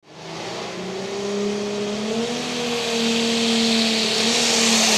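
Alcohol Super Stock pulling tractor's engine running at high revs on the track, its pitch rising slightly in the first couple of seconds and then holding steady, with a hiss building up behind it.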